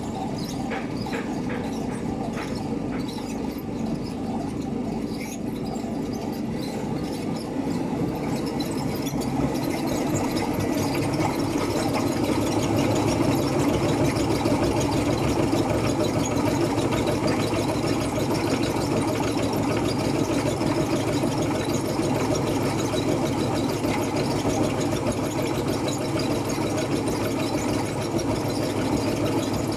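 A motor-driven machine running steadily with a constant hum, getting a little louder about eight seconds in. Light clicks come in the first few seconds.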